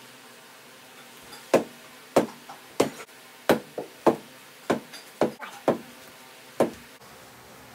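Rubber bouncy ball bounced again and again on a hard floor: about a dozen sharp knocks, unevenly spaced, some in quick pairs.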